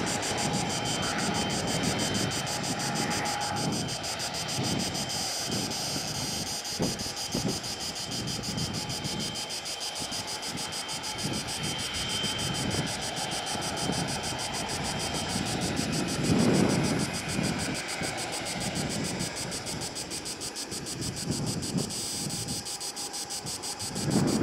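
Wind buffeting the microphone in uneven gusts, stronger twice near the end, over a faint steady high hum and the fading sound of a departed ATR 72 turboprop airliner.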